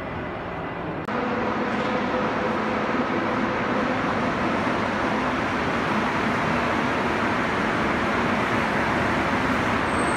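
A Montreal Metro rubber-tyred subway train running past close by: a steady, loud rumble of wheels and running gear with a hum held at a few steady pitches. The sound jumps abruptly louder about a second in.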